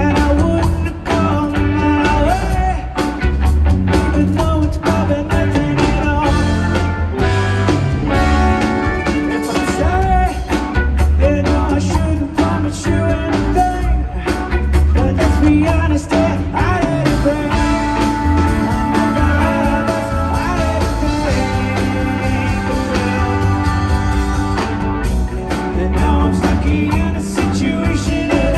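Live rock band playing loudly and continuously, with a dense mix of sustained pitched instruments over heavy low end and frequent sharp hits keeping the beat.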